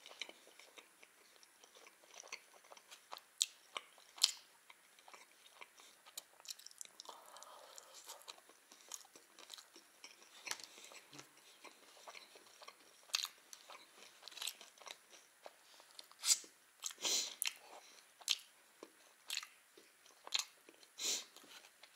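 Close-up chewing of a baked egg-and-cheese casserole, with many short smacking and clicking mouth sounds scattered irregularly, thickest about three quarters of the way through.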